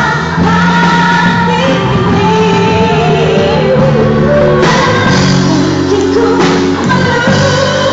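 Young women singing a pop song into handheld microphones over backing music.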